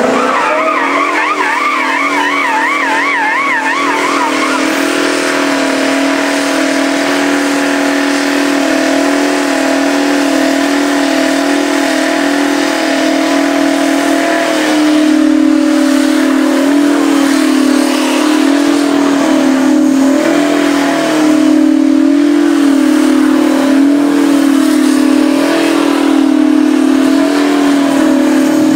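Twin-turbo V16 engine of a Mack cab-over truck held at high revs through a long burnout, its rear tyres spinning and smoking. The engine note stays steady and gets louder about halfway through. A warbling high whistle sounds over it in the first few seconds.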